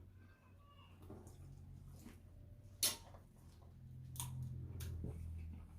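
Close-up eating sounds: crab-leg shells cracking and clicking and food being chewed. A few sharp cracks, the loudest about three seconds in, sit over a low steady hum.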